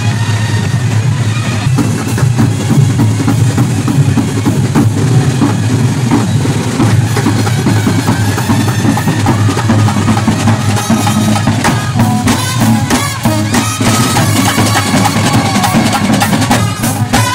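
Street brass band playing: bass drum and snare drum beating a steady, dense rhythm, with trumpets and a euphonium taking up a melody over the drums from a little past the middle.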